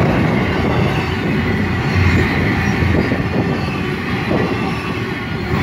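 A Canadian National double-stack intermodal train's well cars rolling past: a steady rumble of steel wheels on the rails.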